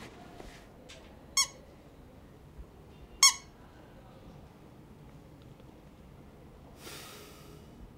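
Small squeaky plush toy squeezed twice: two short, high squeaks about two seconds apart. A soft rustling hiss follows near the end.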